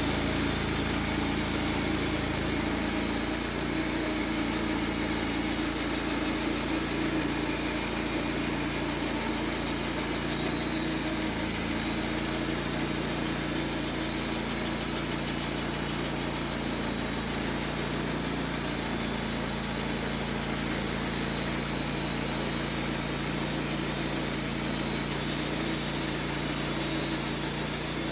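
Portable sawmill's engine running steadily while the mill works the logs; its low hum shifts slightly a few seconds in and again around twelve seconds.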